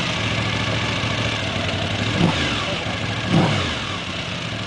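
Sidecar outfit's Suzuki TL1000 V-twin engine idling, with two short throttle blips about two and three seconds in, the pitch rising and falling each time.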